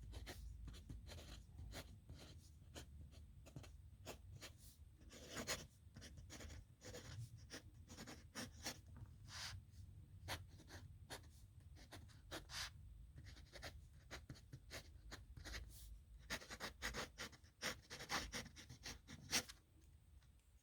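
A pen writing signatures on paper, faint, in quick runs of short scratching strokes that are busiest near the end.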